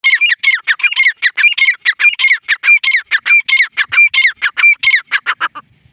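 Grey francolin (teetar) calling: a fast run of loud, high repeated notes, about five a second, that stops shortly before the end.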